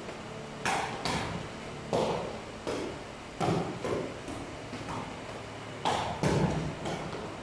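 A light hollow ball, most likely a woven takraw ball, being kicked around a circle of players: about eight sharp knocks come roughly once a second, each with a short echo off the hard walls of the hall.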